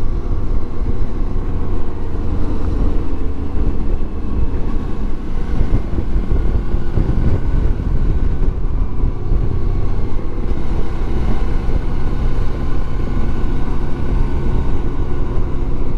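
Motorcycle cruising at a steady speed, its engine running evenly under a heavy rumble of wind noise on a microphone riding with the bike.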